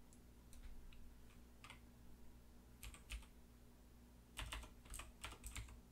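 Faint typing on a computer keyboard: a few scattered key clicks, then a quick run of keystrokes about four seconds in, over a low steady hum.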